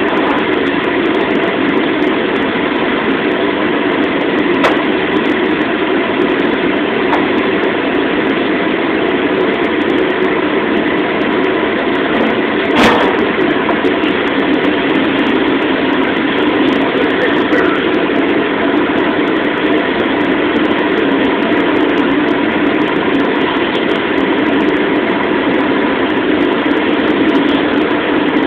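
Gas burner of a restaurant wok range running steadily at a constant level under an empty carbon steel wok that is being heated to season it. One sharp click comes near the middle.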